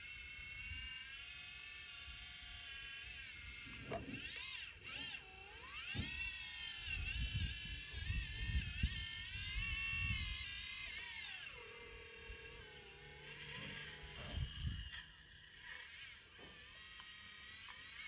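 Hydraulic pump of a Kabolite 336GC radio-controlled excavator whining, its pitch sweeping up and down several times as the controls are worked, then settling to a lower, steadier whine. A low rumble runs underneath.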